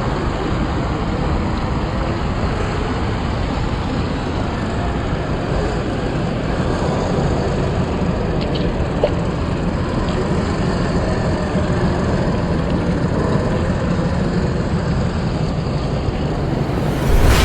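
Steady simulated engine rumble from the G.T. Power sound unit in a 1/10-scale RC crawler, running evenly under a continuous rushing noise.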